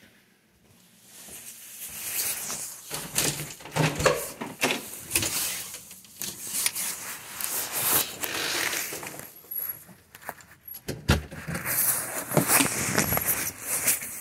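Handling noise of a phone being carried: irregular rustling and clattering with many sharp clicks and knocks, as someone goes out through a door.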